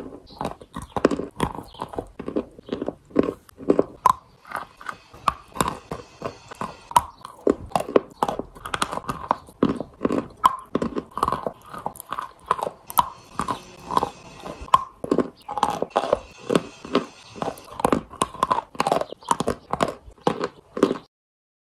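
Close-up chewing of a soft chalk paste: wet, sticky mouth smacks and clicks, about three or four a second, that stop suddenly near the end.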